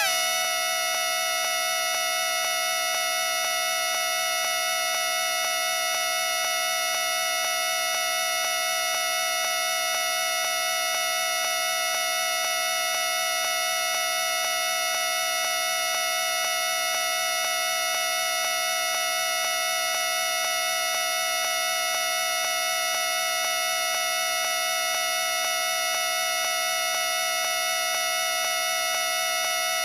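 Party horn noisemaker sounding one continuous buzzing tone without a break, after a brief rise in pitch at the start.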